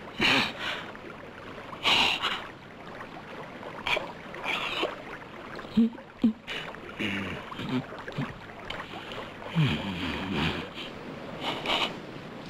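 A stream running over rocks, with short wordless vocal sounds every second or two whose pitch slides up and down.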